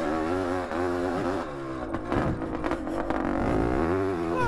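1971 Suzuki TM400 Cyclone's single-cylinder two-stroke engine revving up and down as it is ridden around a motocross track, heard from on board, its pitch rising and falling again and again.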